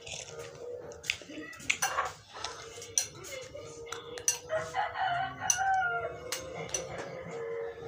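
A rooster crowing once, a drawn-out call about midway that falls in pitch at its end, among scattered sharp clicks and knocks.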